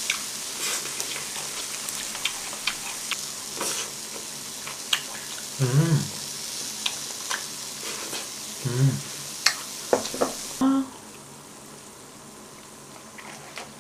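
Marinated pork ribs (dwaeji galbi), potato slices and king oyster mushrooms sizzling steadily on a tabletop griddle, with scattered light clicks and taps. A few brief voice sounds come in, and the sizzling falls away about ten and a half seconds in.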